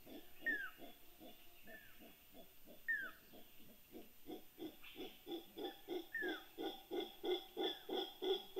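Howler monkeys calling in deep rhythmic grunts, about three a second, swelling louder about halfway through: their reaction to a magnitude 6.3 earthquake. A few short descending whistles cut in over the grunts.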